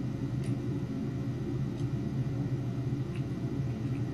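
Steady low background hum with a few faint, light clicks as digital calipers are handled and closed on a small 3D-printed plastic cube.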